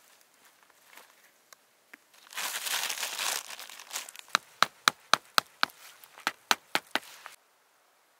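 Dry leaf litter and a plastic tarp crinkling as a stick peg is pushed into the ground. This is followed by a run of about ten sharp taps, about four a second, and then the sound stops abruptly.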